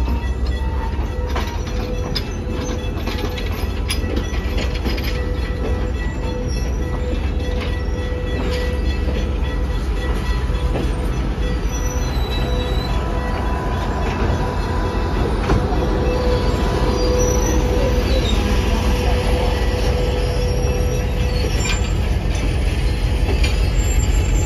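Passenger train cars rolling slowly past close by, steel wheels running on the rails with a steady, thin squeal from the wheels and occasional clicks. The rumble grows louder toward the end.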